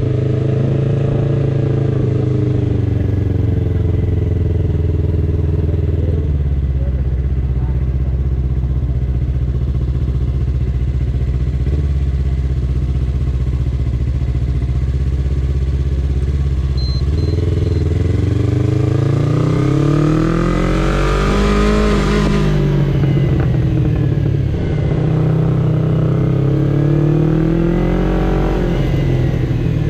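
Yamaha sport bike's engine running under the rider at low speed, its pitch steady at first. About halfway through it rises with the throttle, eases off, and rises again near the end.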